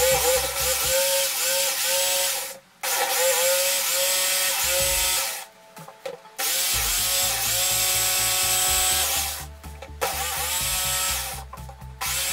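Electric jigsaw cutting through a WPC (wood-plastic composite) board, its pitch wavering under the load of the cut. It stops briefly four times and starts again.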